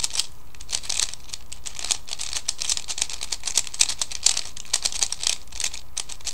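A 3x3 Rubik's Cube being turned quickly by hand: rapid, irregular clicking and clacking of its plastic layers snapping round.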